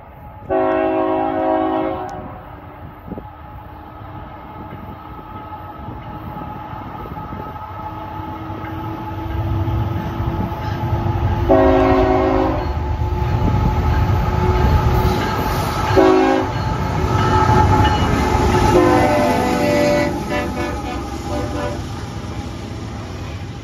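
CSX diesel freight locomotive sounding its horn for a grade crossing: two long blasts, a short one and a final long one, the standard crossing signal. Between and under the blasts the engine and the rolling cars of the intermodal train rumble, growing louder as it nears and passes.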